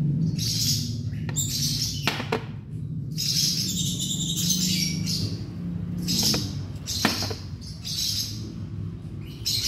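Baby plantain squirrel giving repeated short, high squeaks, about one a second, while its paralysed legs are being massaged. A low steady hum runs underneath.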